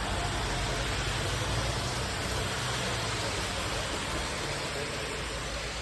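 Steady hiss of heavy thunderstorm rain, with a low rumble underneath that eases off about four to five seconds in.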